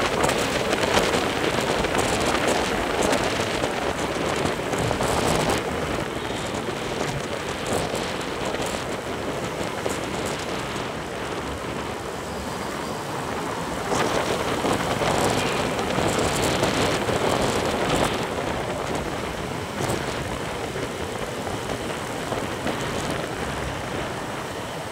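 Rushing wind on the microphone and road noise while riding a motorcycle in traffic, a steady roar that is louder for the first few seconds and again midway.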